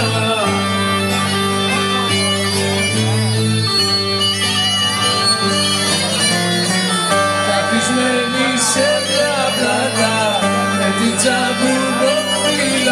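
Live Greek island folk band playing an instrumental passage of an Ikariotiko dance tune: a reedy lead melody over steady held low notes from a double bass.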